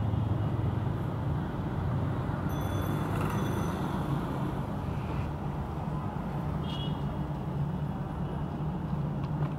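Steady low rumble of street traffic in an outdoor city ambience.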